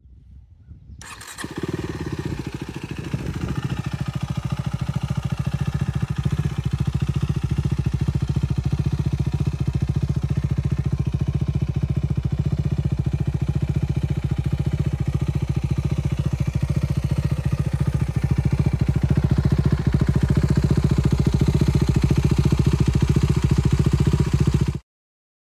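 KTM 390 Duke's single-cylinder engine idling steadily through a LeoVince GP Corsa Evo slip-on exhaust with no baffle fitted. The sound starts about a second in and grows louder over the next few seconds, then holds an even, rapid pulse until it cuts off suddenly near the end.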